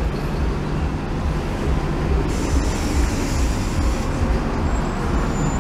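Steady street background noise through a phone microphone: an uneven low rumble with a hiss over it that turns brighter about two seconds in.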